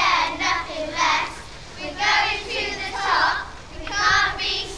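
Young girls' voices shouting a cheer chant, short high-pitched calls coming roughly once a second.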